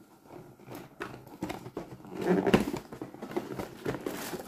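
Hand-unpacking a hair clipper box: cardboard and plastic packaging rustling, with scattered light clicks and taps and a louder stretch about halfway.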